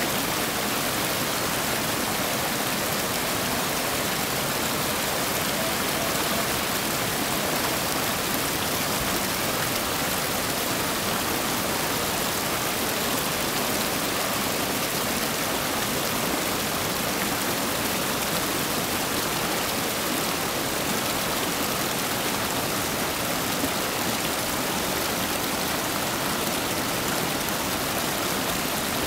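Whitewater rapids rushing over and around rocks: a steady, unbroken roar of fast-moving water.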